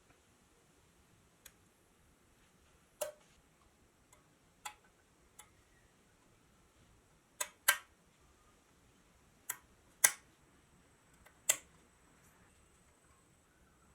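A series of about ten sharp clicks and taps at irregular intervals, like small hard parts being handled or set down, the loudest two coming a little past the middle and about two thirds of the way through.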